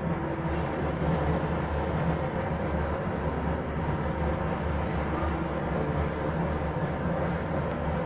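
Cashew pieces frying in hot ghee in a small pan: a steady sizzle over a steady low rumble.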